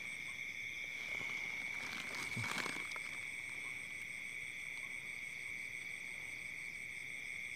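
Steady night chorus of insects and frogs: several unbroken high trills, one of them pulsing rapidly.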